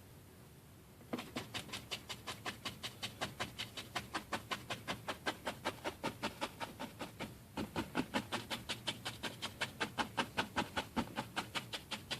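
Oil-paint brush scrubbing on a stretched canvas in quick, even strokes, about four or five a second, starting about a second in, with a short break a little past seven seconds before the strokes resume.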